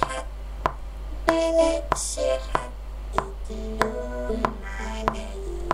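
EVOC 20 PolySynth vocoder on the Electrified Vocoder preset playing back a recorded voice on its own: held synthesizer notes that step in pitch, chopped into robotic, speech-like syllables. A sharp click comes at an even pace, about every two-thirds of a second.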